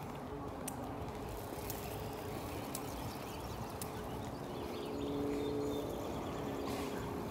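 Footsteps on a paved park path, with steady outdoor background noise and scattered light clicks.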